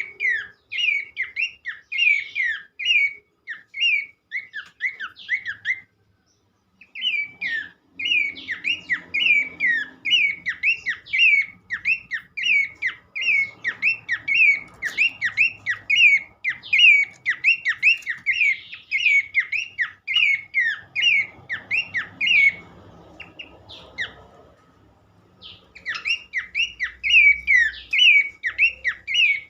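Horsfield's babbler (pelanduk semak) singing a rapid run of repeated clear, down-slurred whistled notes, about three a second. The song breaks off briefly about six seconds in and again near the end.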